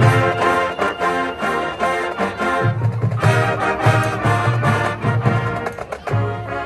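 Brass ensemble playing, with sustained chords over a pulsing low bass line.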